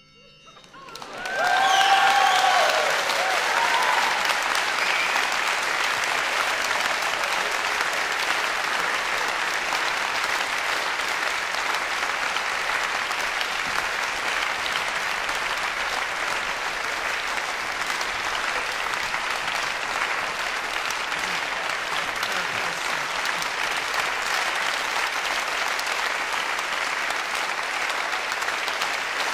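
Concert audience breaking into applause about a second in after a brief hush, with a few shouted cheers at the outset, then steady, sustained clapping.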